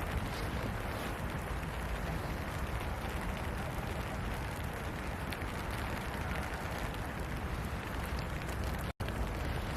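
Steady rain falling, an even rushing patter, with a split-second dropout to silence about nine seconds in.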